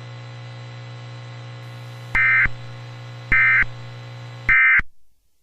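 Three short bursts of SAME digital data tones, the EAS end-of-message code, sent about a second apart on a NOAA Weather Radio broadcast. They play over a steady low hum and hiss from the broadcast, which cuts off just after the third burst.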